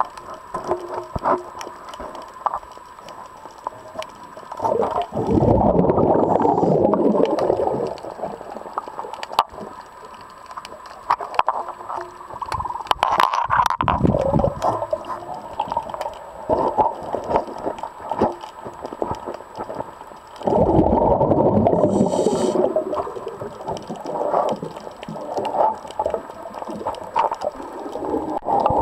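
Underwater recording of a diver's exhaled breath bubbling out in two long bursts, each about two to three seconds, roughly fifteen seconds apart. Scattered clicks and knocks are heard between them.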